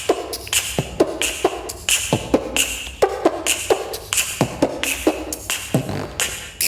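A boy beatboxing: a steady rhythm of mouth-made low kick-drum thumps, sharp clicks and short hissing bursts like hi-hats and snares.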